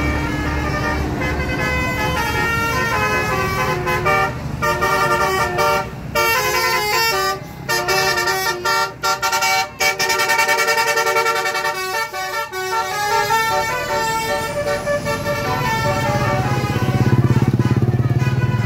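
Bus telolet horn: a bus's multi-tone musical air horn playing a jingle of quickly stepping notes for about fifteen seconds, with short breaks, over the low running of the bus engine.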